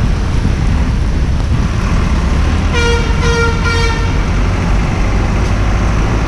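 Steady rush of wind and rain noise on the microphone of a moving bicycle, with a vehicle horn honking three times in quick succession about three seconds in.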